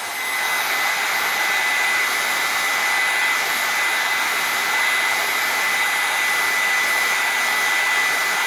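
Hot-air blower running steadily, a loud rush of air with a thin high whine from its fan motor, heating an iPhone 6 to soften the adhesive strips under its battery.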